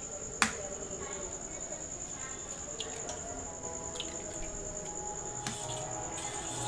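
Eggs being cracked against the rim of a stainless steel bowl: a sharp crack about half a second in, then a few fainter taps and shell cracks. A steady high-pitched whine sits in the background.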